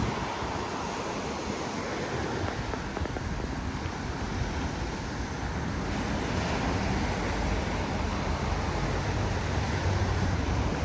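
Steady rush of wind buffeting the microphone.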